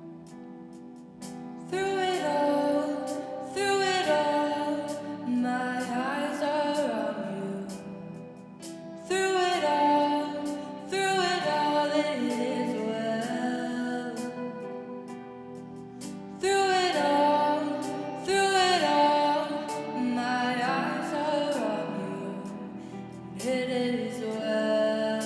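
Worship music: a sung melody in phrases of a few seconds over sustained instrumental accompaniment.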